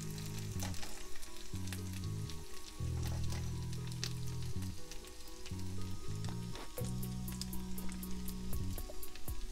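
Diced potatoes frying in a pan on an electric stove: a steady sizzle with small crackles, and a fork poking and turning the pieces.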